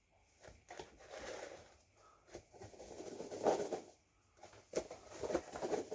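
Packaging being handled and unwrapped: irregular rustling and crinkling with small clicks and taps, coming in clusters with brief pauses, busiest around the middle and again near the end.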